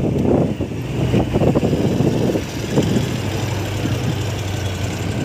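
Honda Activa 125 scooter's single-cylinder four-stroke engine running at low riding speed, a steady low hum, with irregular gusts of wind on the microphone.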